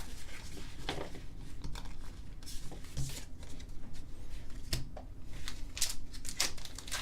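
Hands handling Pokémon trading cards and their foil and plastic packaging: scattered light clicks, rustles and crinkles at irregular moments.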